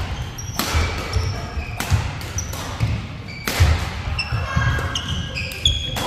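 Badminton doubles rally: sharp racket-on-shuttlecock hits about once a second, with sneakers squeaking and thudding on the court floor.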